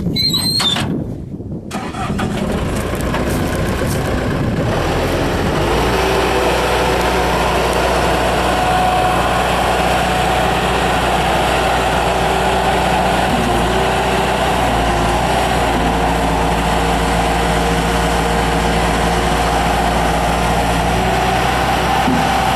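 A 1998 Bobcat 873 skid steer's 73 hp turbo diesel is started: a short high beep near the start, then the engine cranks and catches about two seconds in and settles into a steady idle.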